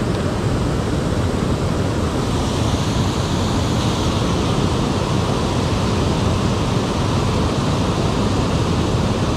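Steady rush of water pouring over a low dam spillway into the river, heard up close.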